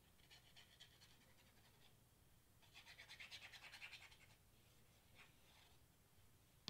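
Faint, quickly pulsing rasp of a craft-glue squeeze bottle's nozzle tip dragging over cardstock as a zigzag bead of glue is drawn, loudest about three to four seconds in.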